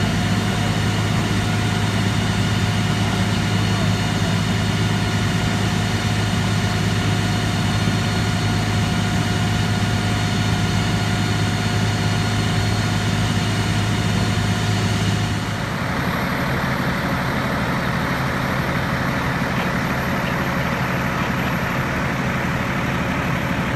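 Fire engine running at the scene: a steady engine drone with a strong low hum. About two-thirds of the way through, the low hum drops and a broader hiss takes over.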